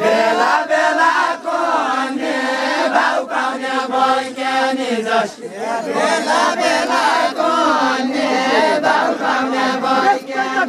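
Deuda folk song sung by a group of dancers, many voices chanting a melody together in drawn-out, held notes, with a brief break about halfway through.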